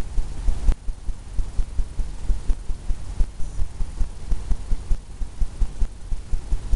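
Low, dull thumps several times a second, uneven in strength: a brush dabbing against a stretched canvas, which sounds like a drumhead.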